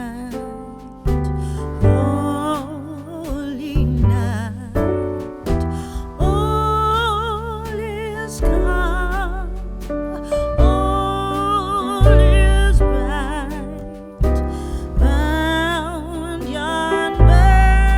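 Background music: a slow song with a sung melody with vibrato over piano or keyboard and a deep bass.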